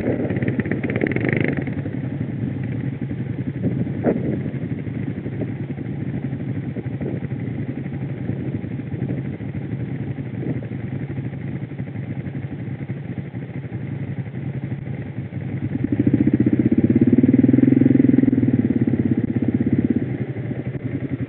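Quad bike (ATV) engines running at low speed in a steady drone. About sixteen seconds in, one engine gets louder for roughly four seconds, then drops back, with a single sharp click about four seconds in.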